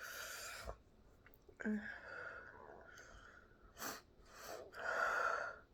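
A person breathing hard in long breathy exhales, with a short sharp catch of breath about four seconds in. The spicy noodles they have been eating have left them with hiccups.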